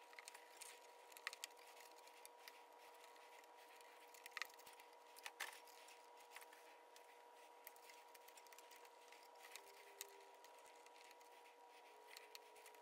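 Near silence: a faint steady hum, with a few faint clicks and taps as small wire connectors are handled and pushed onto a 3D printer's control board.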